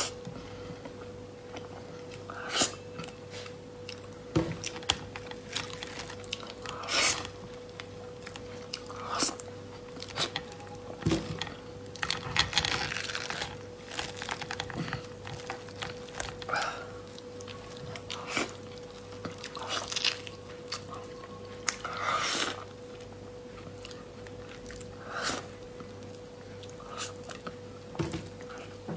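Close-up sounds of a durian being pulled apart by hand and its soft flesh eaten: irregular short tearing, squishing and chewing noises. A faint steady hum runs underneath.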